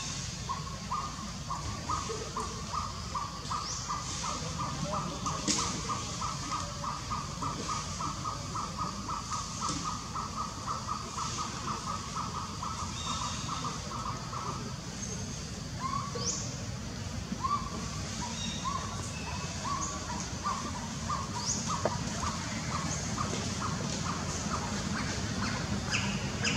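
A bird repeating one short note about three to four times a second in a long run, which stops about two thirds of the way through and starts again slower before speeding back up. Other short high bird chirps are scattered over it, with a steady low rumble of background noise underneath.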